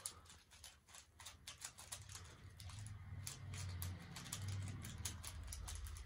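Plastic 3x3 Rubik's Cube being twisted quickly by hand to scramble it: a fast, irregular run of faint clicks as its layers turn.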